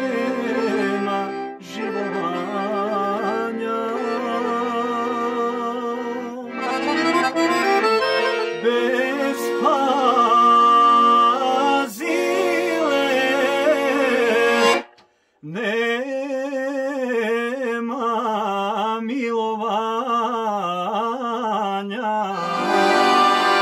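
Piano accordion playing an ornamented melody, with a man singing with vibrato over it. The music breaks off for a moment about fifteen seconds in, then the voice carries the tune over the accordion.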